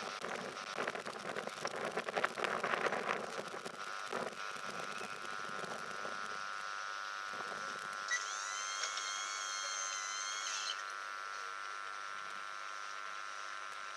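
Rake of passenger coaches rolling away on the main line, the wheels clicking and clattering over the rail joints in the first few seconds before fading to a quieter rumble. A high steady tone of several pitches sounds for about two and a half seconds past the middle.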